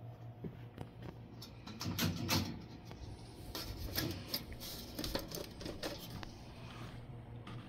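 Rustling and scattered light clicks of a hand and sleeve handling the sheet-metal flue fittings of an old gas boiler, loudest about two seconds in, over a steady low hum.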